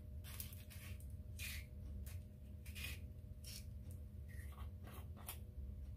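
Small spice shakers of pepper and garlic powder being shaken over a bowl of raw fish fillets: soft, irregular, scratchy swishes, over a steady low hum.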